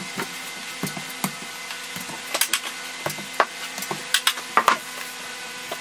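Metal drywall taping knife scraping and wiping joint compound over paper tape on a drywall seam: a run of short, irregular scrapes and clicks over a steady hum.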